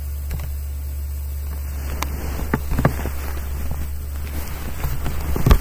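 A steady low hum, with knocks and rustles from about two seconds in as the webcam is handled and moved, the loudest knock just before the end.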